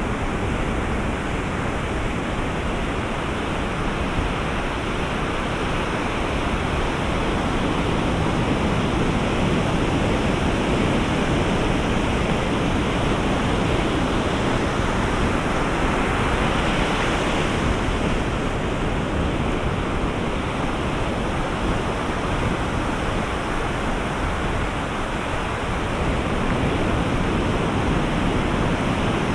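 Ocean surf breaking on a sandy beach: a steady rush of waves with slow, gentle swells in level.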